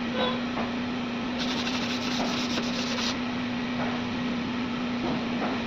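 Body filler on a car's rear quarter panel being hand-sanded, abrasive rubbing over the putty. The rubbing is loudest for about two seconds from a second and a half in. A steady mechanical hum runs underneath.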